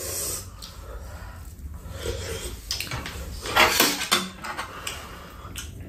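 Two people eating spicy chicken soup: breathy slurps from spoons, the loudest a little before four seconds in, with light clinks of spoons and chopsticks against bowls.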